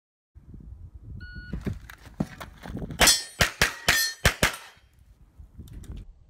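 A shot-timer beep about a second in, then a fast string of about a dozen pistol shots over some three seconds, with steel targets ringing on the hits.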